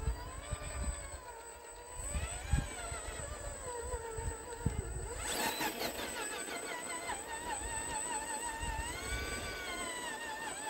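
Background music with a wavering melody.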